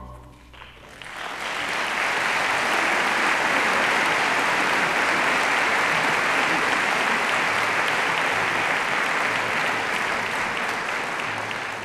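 Audience applause on a live opera recording. It builds up over the first second or two after the singing stops, holds steady, and fades out near the end.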